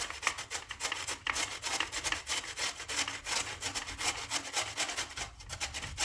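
A raw potato being grated on a hand grater: rapid, rhythmic rasping strokes, several a second.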